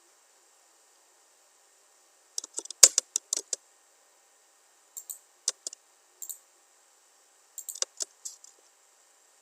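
Computer mouse and keyboard clicks in short clusters of quick taps, as AutoCAD drawing commands are entered, with faint steady hiss between them.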